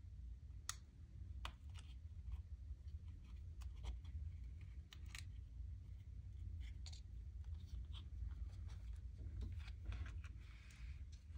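Hands handling small beads and paper craft pieces on a work table: faint scattered clicks and light rustling over a steady low hum.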